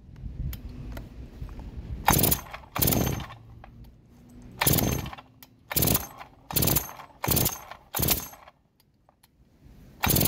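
Farmertec G366 two-stroke chainsaw being pull-started on choke: about seven short bursts of recoil-rope cranking, two about two seconds in and then five in quick succession, without the engine catching and running.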